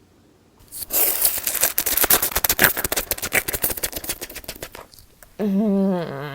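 Ramen noodles and soup being slurped close to the microphone, ASMR-style: a dense, wet, crackling run of slurps for about four seconds. Near the end comes a drawn-out, wavering vocal sound.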